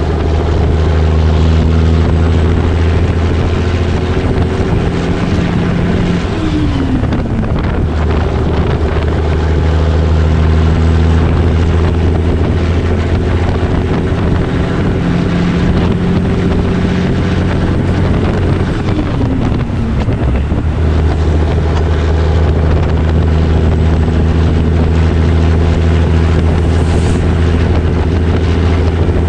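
The Caterpillar 3406B diesel of a 1984 Peterbilt 362 cabover pulling at highway speed under load, a deep steady drone. Twice, about six and nineteen seconds in, the engine note falls in pitch and breaks off briefly, then comes back.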